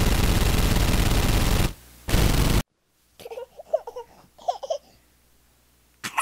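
A loud, steady hiss that dips briefly and then cuts off abruptly about two and a half seconds in, followed by faint voices like laughter.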